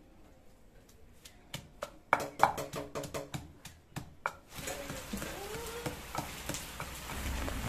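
Wooden pestle pounding fresh mint, green chillies and garlic in a stone mortar: a quick run of dull knocks, starting about a second and a half in. Steady rain hiss joins about halfway, with the knocks growing sparser.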